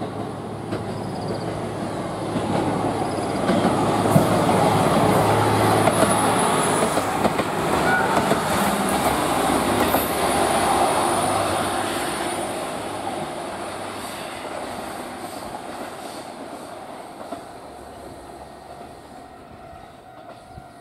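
A GV-E400 diesel-electric railcar passing close by: the engine and wheels on the rails grow louder, peak with a few clicks over rail joints and a faint high wheel squeal, then fade away as the train moves off.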